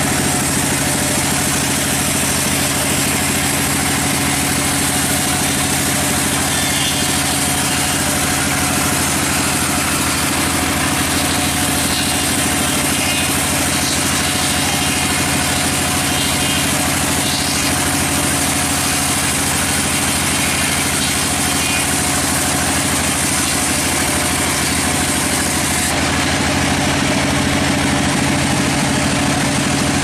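Vertical band sawmill running steadily, its band blade sawing lengthwise through a log over the constant hum of the mill's drive.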